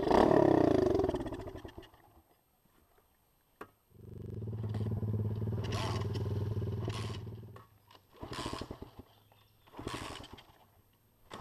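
Small single-cylinder pit bike engine. Its revs fall away at first, then it runs steadily for a few seconds, and two short snatches of it follow near the end. The sound stops and starts abruptly, with stretches of dead silence between.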